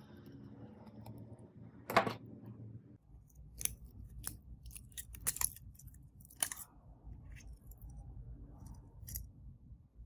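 Hand tools working on a phone: a run of sharp, separate clicks and snips, the loudest about two seconds in, over a faint low hum.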